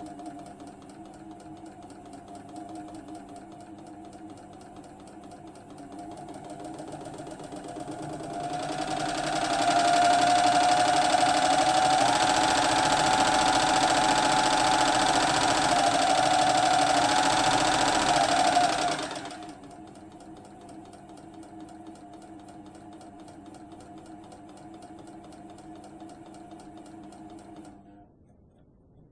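APHA Adler sewing machine with its cover off, its belt-driven electric motor turning the exposed mechanism. It runs slowly and steadily at first, speeds up over a few seconds to run fast for about ten seconds, slows back down, and stops near the end.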